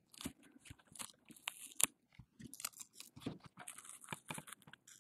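Irregular crackling and clicking as the plastic back cover of a Droid Turbo 2 is pulled up and peeled away from its adhesive.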